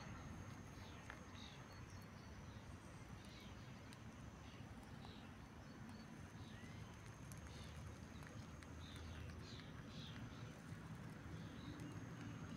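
Faint outdoor ambience: a low rumble of wind on the microphone, soft scattered high chirps, and a faint steady high tone.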